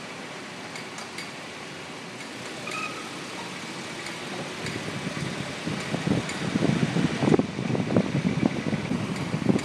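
Volvo 240 moving at slow speed, with faint sharp clicks over the steady running noise: the clicking that comes when the car turns slowly. About halfway through, a louder, uneven rumble takes over.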